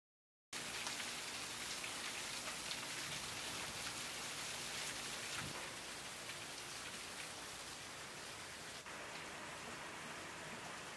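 Thunderstorm rain falling on puddles and wet ground: a steady hiss dotted with the small splashes of single drops. It cuts in suddenly about half a second in.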